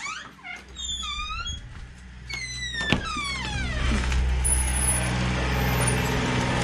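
Doors squeaking open, with several short squeaks and then one long squeak falling steadily in pitch, and a sharp click about three seconds in. From about four seconds in, a compact tractor's engine runs steadily and grows louder.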